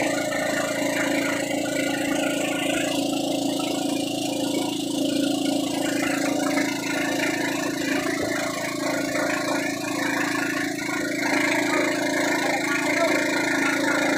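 Engine of a motorized outrigger boat running steadily under way, a constant hum over the rush of wind and water.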